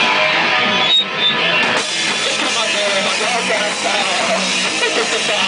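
A live rock band playing loud, with the drum kit and electric guitar together. The level dips briefly about a second in.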